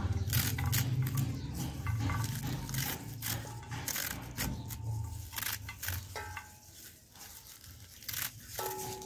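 Fresh spinach being sliced in the hand with a knife, a rapid series of crisp cuts through the bunched leaves, over a low hum that fades out about halfway through.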